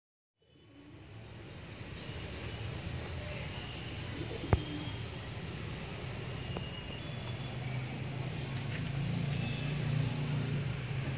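Steady low background rumble, like traffic, with a few faint bird chirps. It fades in just after the start, and there is one sharp click about four and a half seconds in.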